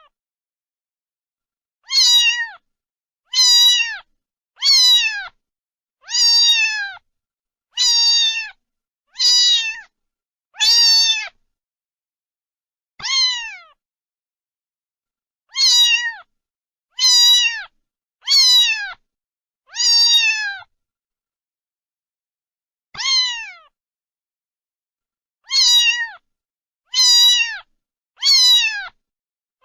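A cat meowing over and over: about sixteen short meows, each falling in pitch, with clean silence between them and a few longer pauses.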